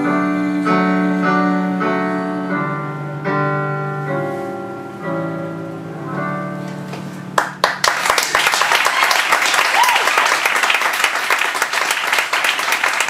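Digital keyboard playing the closing piano chords of a song, each chord struck and left to ring, growing softer. About seven seconds in, the audience breaks into steady applause.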